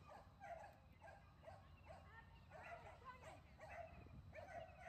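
A dog barking and yipping in a rapid, excited string, about three barks a second, faint.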